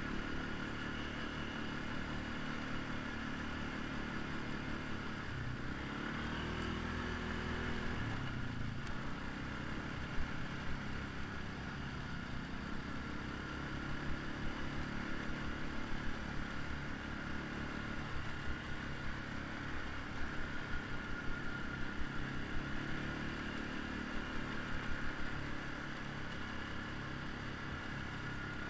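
ATV engine running under way on a dirt trail, with its pitch shifting up and back down about six to nine seconds in.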